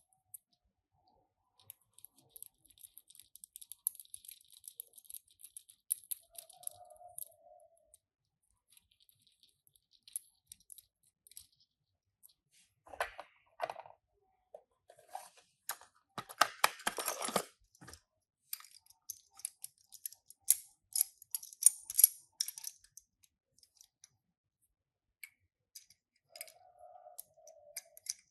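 Light clicks, taps and rattles of small die-cast toy cars and their packaging being handled, with a busier spell of handling noise about two-thirds of the way through.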